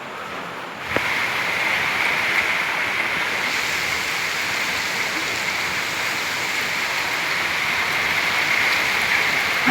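Heavy rain pouring down, a steady hiss that jumps suddenly louder about a second in.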